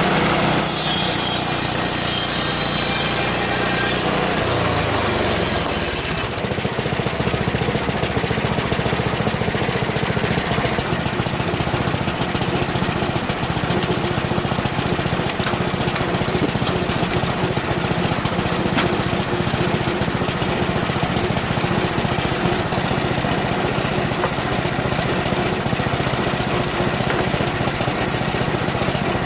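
Frontier OS23 bandsaw sawmill's gas engine running at speed just after starting, with its band blade turning. About five seconds in the sound shifts lower and then runs steadily as the mill saws across clamped pine boards.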